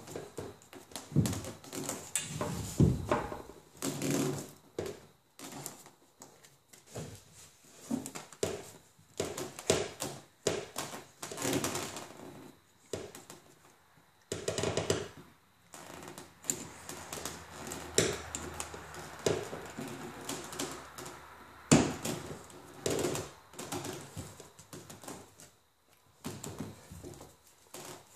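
Stiff 1.5-inch plastic hose being pushed and twisted by hand onto a plastic tee fitting, soaped to help it slide: irregular clicks, knocks and rubbing of plastic on plastic.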